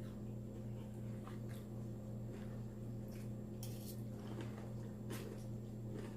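Close-up chewing of a salad with croutons: scattered short wet crunches and mouth clicks. A steady low electrical hum runs underneath.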